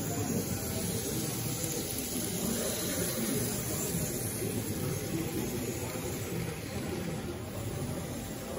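Steady murmur of crowd chatter and general hall noise, with no single sound standing out.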